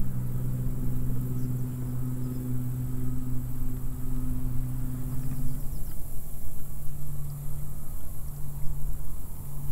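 Wind buffeting the microphone, with a steady low motor hum under it. The hum stops a little over halfway through, then comes and goes.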